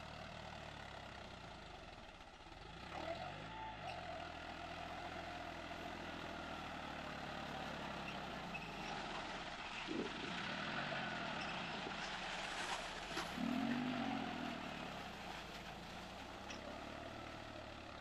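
John Deere 5310's three-cylinder diesel engine working a cage-wheeled tractor through wet paddy mud. Its pitch dips and recovers several times as the load comes on and eases, and it is loudest about two-thirds of the way through.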